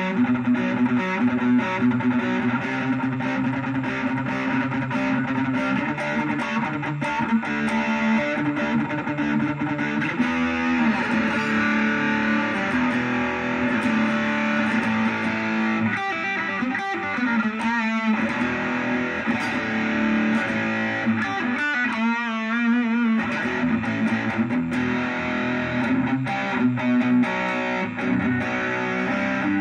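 Electric guitar played continuously through a Vox VR30 Reverb combo amp with an overdriven tone. It plays chords and single-note lines, with wavering bent notes with vibrato about halfway in and again a few seconds later. The sound is dry, because the amp's reverb is broken.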